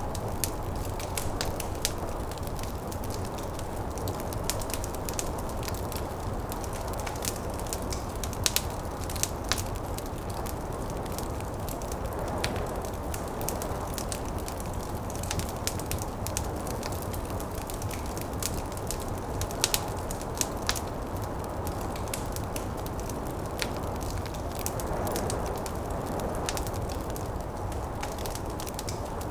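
Wood fire crackling in a fireplace: many sharp pops and snaps scattered over a steady low rushing noise of snowstorm wind.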